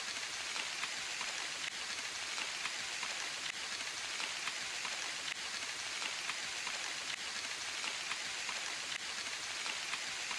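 Steady rain falling, a constant hiss with many small drop ticks scattered through it.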